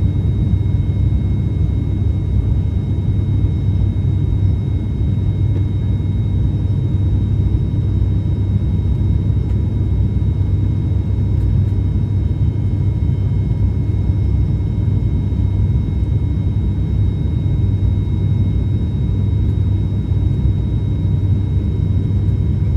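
ATR 72-600 turboprop engines and propellers heard from inside the cabin beside the propeller: a steady low drone with a faint high whine over it, unchanging throughout.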